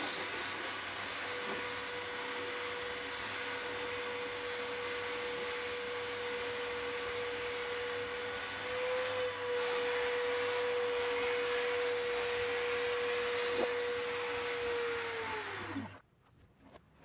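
Electric router running steadily with a high motor whine while routing deeper into the coachroof. Near the end it is switched off and its pitch falls as it spins down.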